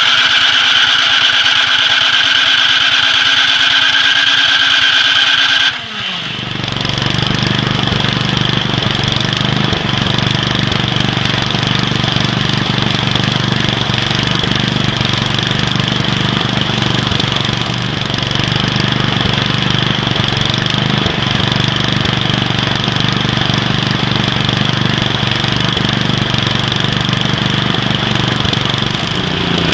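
Gasoline snowblower engine running fast with a steady high whine. About six seconds in it drops in pitch and settles into a lower, steady run.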